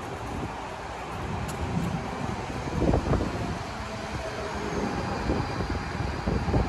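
DSB Litra SA S-train electric multiple unit running along the platform, a steady low rumble from the train.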